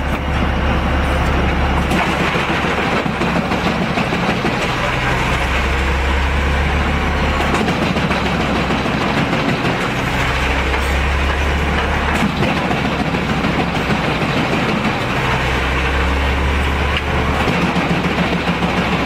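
Heavy diesel machinery running under load: a loud, continuous mechanical din whose deep rumble swells and eases in spells of a few seconds, about four times.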